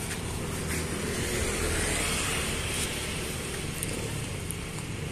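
Road traffic with a low engine rumble throughout, swelling as a vehicle passes about two seconds in.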